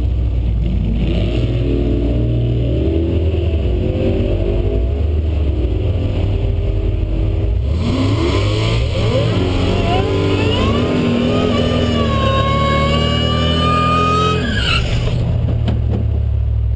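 Drag car's engine heard from inside the cabin, idling with a low uneven rumble, then about eight seconds in revved up with a rising whine and held at high revs for several seconds before dropping back to idle near the end.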